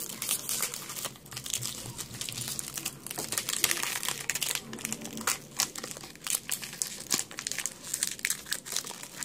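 Foil wrapper of a Pokémon Champion's Path booster pack crinkling in the hands with irregular crackles as it is handled and worked open.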